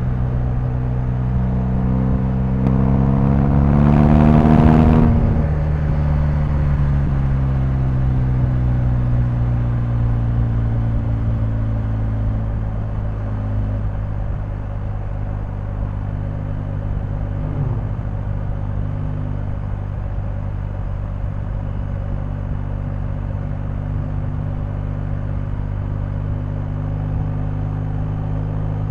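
BMW R1250GS boxer-twin engine rising in revs for about five seconds, with a brief hiss at the peak. It then eases off, the pitch falling slowly, and settles into running steadily at low revs.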